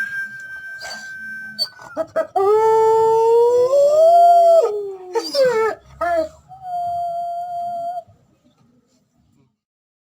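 Belgian Malinois howling: a long held note, then a louder howl that rises and wavers, a few quick falling yelps, and a last held note. It stops about eight seconds in.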